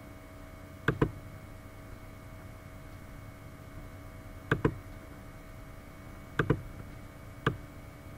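Computer mouse clicking four times, the first three each a quick double tick, over a steady background hum.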